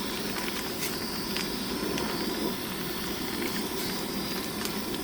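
Steady outdoor background noise: an even hiss with a few faint clicks.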